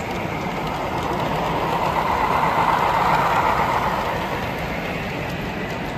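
HO scale model freight train rolling along the track, growing louder for a couple of seconds in the middle as the cars pass close, then fading.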